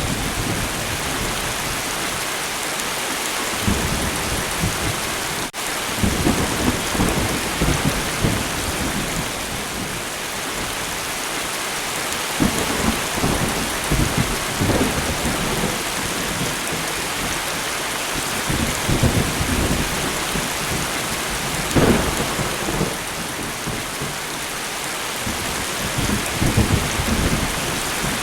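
Steady rain falling, with low rolls of thunder rumbling in again and again over it.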